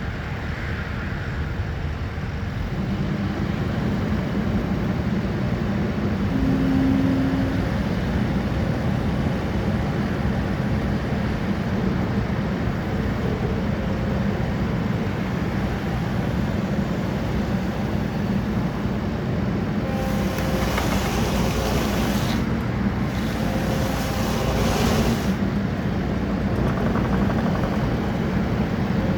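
Kubota SVL95-2 compact track loader's diesel engine running steadily, a low even hum, with a few seconds of added hiss about two-thirds of the way through.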